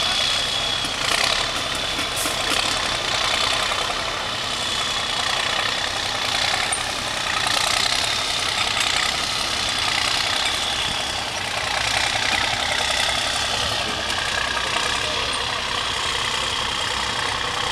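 Diesel engine of a MAN off-road trial truck running steadily as the truck crawls over rough, rocky ground.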